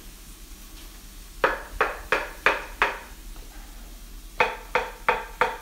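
Chef's knife chopping mushrooms on a wooden cutting board: two runs of sharp knocks, about three a second, the first starting over a second in, with a short pause between.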